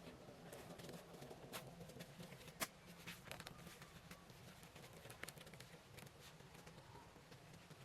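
Faint scattered taps and clicks against quiet background, with one sharper knock about two and a half seconds in.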